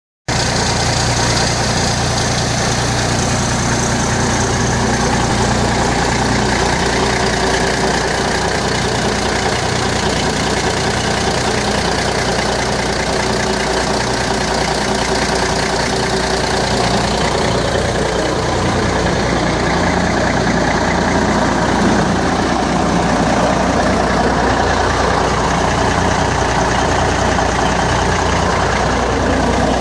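Drill rig carrier truck's Cummins 350 Small Cam diesel idling steadily.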